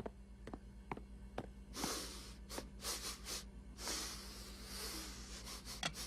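Cartoon piglet sniffing and snorting in several breathy bursts, after soft ticking about two a second that stops about a second and a half in.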